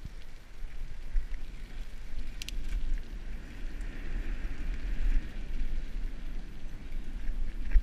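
Wind buffeting the microphone over the rolling noise of a bicycle riding along a concrete path, with a couple of sharp clicks about two and a half seconds in.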